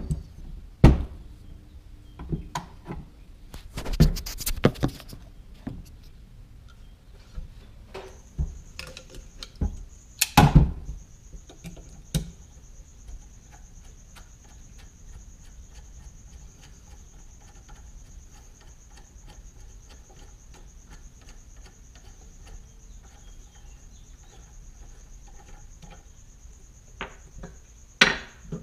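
Scattered knocks and clanks of a steel AK barrel and its gas block being handled and worked on. The sharp knocks come mostly in the first ten seconds and two more near the end, with quieter handling noise between. A steady thin high tone sounds through the middle.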